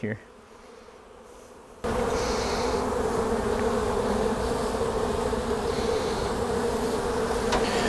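Honey bees buzzing around an open hive: a loud, steady hum that starts abruptly about two seconds in, after a quieter moment.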